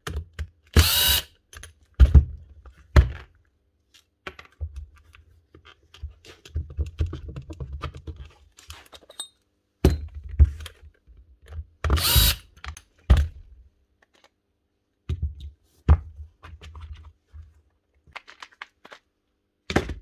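Cordless drill-driver running in several short spurts as it backs out the screws of an impact driver's plastic housing, the longest spurts about a second in and around twelve seconds in. Between them come clicks, knocks and clatter of screws and housing parts being handled.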